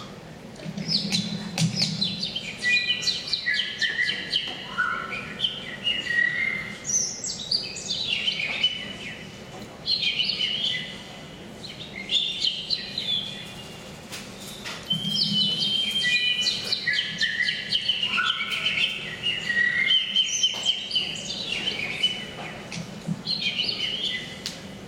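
Human vocal mimicry of birdsong: rapid high chirps, trills and sliding whistled calls in two long runs, with a short lull in the middle.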